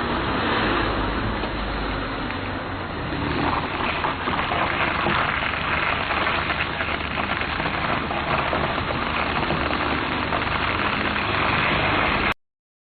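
Car tyres rolling slowly over gravel, a steady dense crunching and crackling of stones under the tread, with a low engine hum underneath. It cuts off suddenly near the end.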